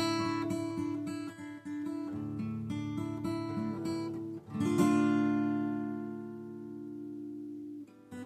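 Acoustic guitar playing: a run of plucked notes, then a strummed chord about halfway through that is left to ring and slowly fade before it is stopped near the end.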